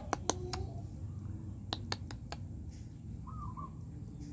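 A quick run of sharp clicks, three at the start and four more about two seconds in, over faint outdoor background.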